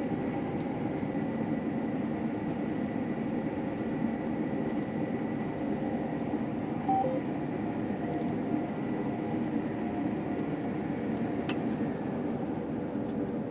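Combine harvester running steadily under load while cutting wheat: an even engine and machinery drone with a thin, high, steady whine above it.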